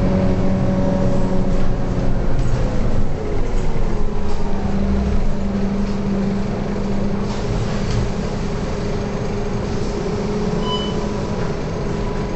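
Rear-mounted five-cylinder diesel engine of a Scania K230UB single-deck bus, heard from inside the passenger saloon while the bus drives. Its drone falls in pitch over the first few seconds, then holds steady. A short high beep sounds near the end.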